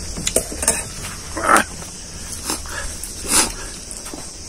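A dog barks, twice loudest, about a second and a half in and again about three and a half seconds in, over soft eating sounds of hands working rice on steel plates.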